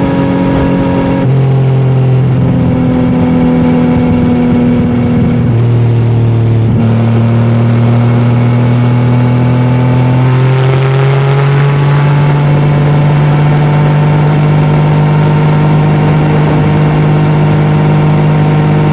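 Yamaha MT-09's inline-three engine through an Akrapovic exhaust, running loud at highway speed. The engine note shifts a few times with the throttle during the first ten seconds, then holds steady.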